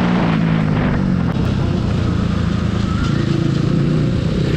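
Bajaj Pulsar NS200's single-cylinder engine running on the move. Its pitch eases down in the first second as the revs drop, then holds steady. Wind and road noise run underneath.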